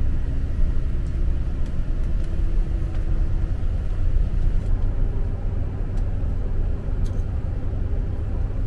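Steady low rumble of a moving vehicle, with a faint engine hum.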